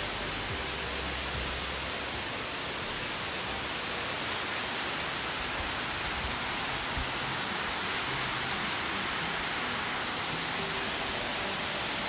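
A waterfall's steady rush of falling water, an even hiss with no change in level.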